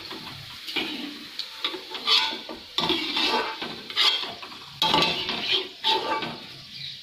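Steel slotted spoon scraping and clattering against a steel kadhai, in irregular strokes, as fried grated potato is lifted out of the oil, with hot oil sizzling underneath.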